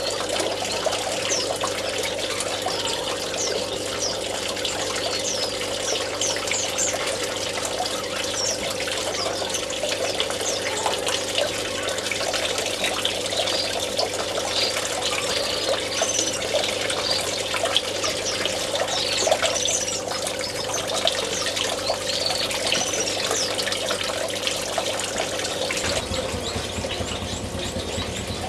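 Steady trickling, running water from an aviary pool, with many short, high chirps from small finches scattered throughout.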